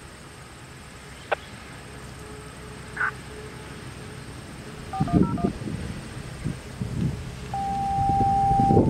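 Radio scanner receiving siren-activation paging tones. About five seconds in comes a quick string of short beeps stepping between two pitches. Near the end a long steady tone begins, changing to a slightly higher held tone at the very end, over a low fluctuating rumble.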